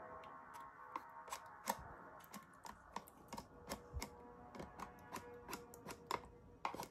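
A spoon clicking and scraping against the cheese maker's container while thick strained Greek yogurt is stirred, in quick irregular taps, over faint background music.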